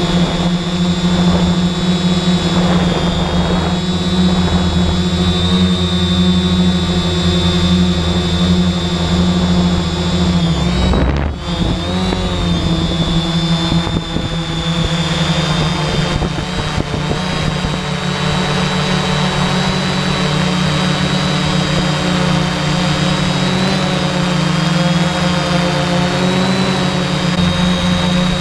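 A drone's electric motors and propellers running with a steady whine, heard close up from the camera on board. About eleven seconds in the sound briefly drops and its pitch shifts, then it settles back to the steady whine.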